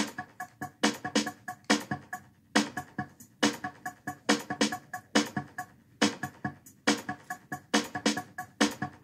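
Music with a steady beat: a strong hit a little under once a second, with lighter hits between.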